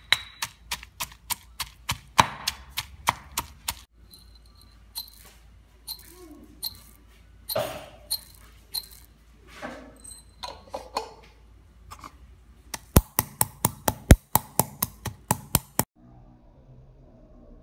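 Stone pestle pounding in a stone mortar, first crushing peeled garlic cloves with a quick run of sharp knocks, about four a second. The knocks thin out and mix with grinding for a while, then white peppercorns get a second fast run of strikes. The pounding stops about 16 seconds in.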